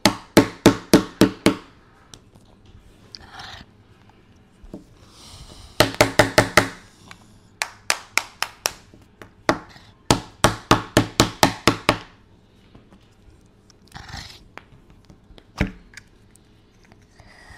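Small wooden toy hammer tapping a hollow plastic toy capsule to crack it open. The taps come in quick runs of several hits, about five a second. The longest run is past the middle, and a few single taps follow near the end.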